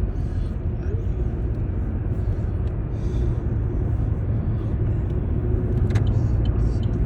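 Steady low road rumble of a car at highway speed, heard from inside the cabin. A sharp click comes about six seconds in, followed by faint, evenly spaced ticks.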